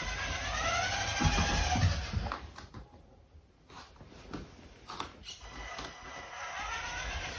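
Small electric motor of a radio-controlled toy car whining, its pitch rising and falling as it speeds up and slows, with rumbling and bumps as it drives. About halfway through it goes quieter, and a few sharp knocks follow.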